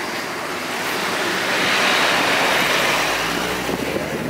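Road and traffic noise from a tour bus moving through city streets: a rushing sound that swells about two seconds in and then eases off, over a low engine hum.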